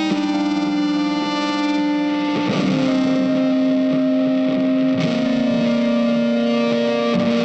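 Background music: a distorted electric guitar holding long notes, shifting pitch every two to three seconds.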